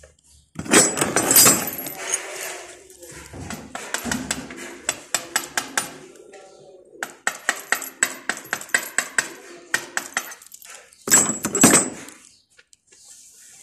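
Hand tools working the end of a 3/8-inch copper pipe being prepared for a flare joint: two bursts of metallic scraping, about a second in and near the end, with runs of quick metallic clicks, about four a second, between them.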